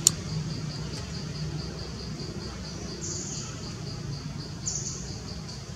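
Insects trilling steadily in a high, even pulse of about five beats a second, over a low background rumble. A single sharp click comes right at the start.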